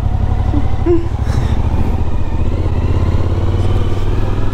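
Motorcycle engine running under way as it rides off, its note rising steadily as it picks up speed.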